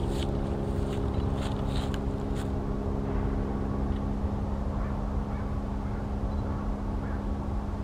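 Steady low machine hum with a constant pitch, like a distant engine running. A few short, sharp high ticks or chirps come in the first two or three seconds.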